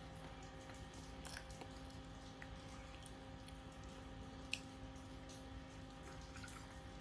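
Faint wet mouth sounds of a child chewing food, with scattered small clicks and one sharper click about four and a half seconds in, over a steady low hum.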